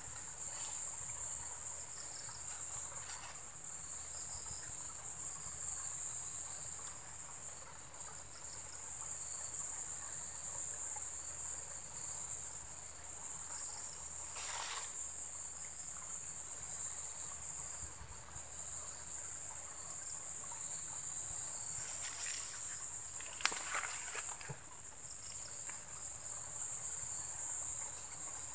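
Steady high-pitched chorus of insects, with a few brief noises about halfway through and again around two-thirds of the way in.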